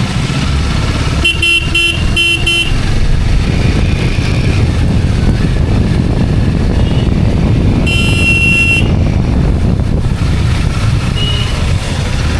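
Road traffic heard from a moving two-wheeler: a steady low rumble of engine and road noise, with a quick series of short horn beeps about a second in and one longer horn honk near eight seconds.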